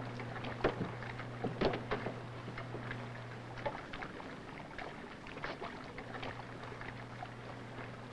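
Faint surface noise of an old 16 mm film soundtrack: a steady low hum with scattered clicks and crackles. The hum drops out for a few seconds midway, then comes back.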